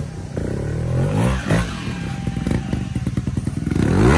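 Trials motorcycle engine revved in short bursts under load as the bike climbs a steep dirt bank, the pitch rising and falling with the throttle. The loudest rev rises sharply near the end.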